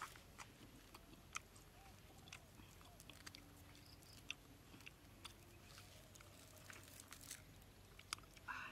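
Faint clicks and small crackles of a roasted egg's shell being peeled, with quiet chewing, about once a second.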